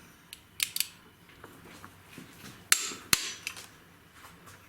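A few sharp clicks and knocks from handling small hard objects or tools: two light ones under a second in, then two louder ones a little before and just after the three-second mark.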